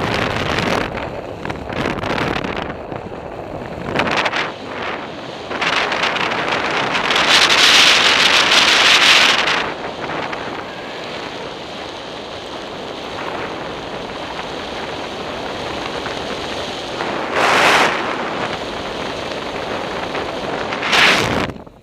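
Wind buffeting the microphone in motorless paraglider flight: a steady rush of air with no engine, swelling loudly for a couple of seconds about a third of the way in and in two short gusts near the end.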